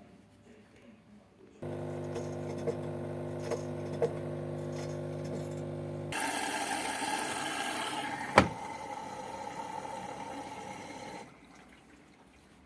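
Xiaomi washing machine's drain pump switching on with a steady motor hum, then turning to a louder rushing, water-like noise as it pumps, with one sharp click partway through; it cuts off abruptly before the end.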